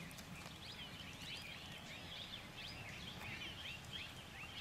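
A chorus of small birds chirping and calling, many short rising and falling calls overlapping, over a faint low background rumble.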